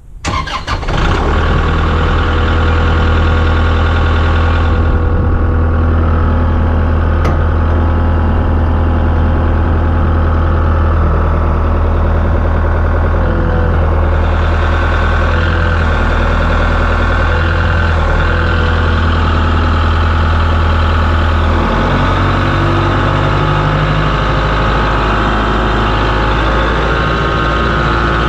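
A large truck engine, the M62 wrecker's, starts up and settles into a loud, steady run. About three-quarters of the way through, its low note drops and changes, as the engine speed or load shifts.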